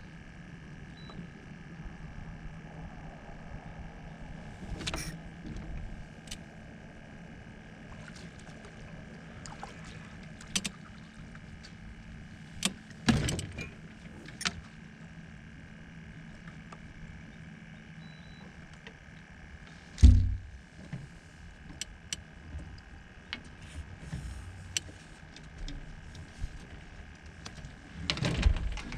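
Steady hum and whine of a small electric motor, typical of a boat's trolling motor pushing slowly while spider rigging. Scattered knocks and clicks come from gear handled in the boat, with a sharp thud about twenty seconds in.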